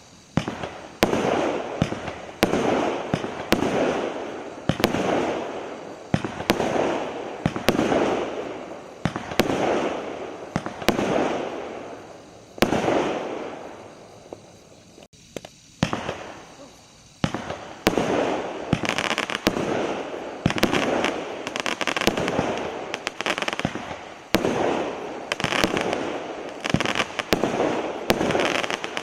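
Consumer fireworks cakes firing shot after shot, each a sharp bang followed by a fading burst, about one a second. A short lull comes about fifteen seconds in, then the shots come faster and closer together.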